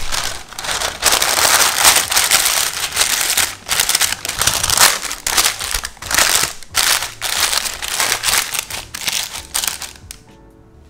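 Loud, dense crinkling and crackling of two layers of parchment paper as they are crumpled and pressed into a cake tin, stopping about a second before the end.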